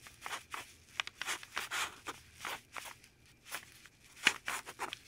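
Felt-tip marker scratching across paper in a rapid series of short strokes, as a Chinese character is written stroke by stroke.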